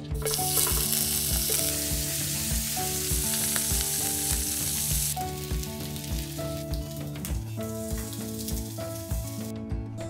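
Bacon slices frying in oil in a frying pan: a steady sizzle that starts right away, is loudest in the first half and cuts off suddenly near the end.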